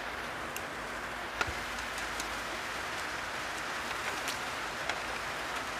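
Eating sounds: scattered light clicks and taps from hands and utensils on a plate, the sharpest about a second and a half in, over a steady background hiss.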